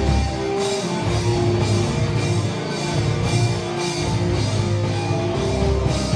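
Heavy metal band playing live: distorted guitars, bass and drum kit, with cymbal and snare hits on a steady beat.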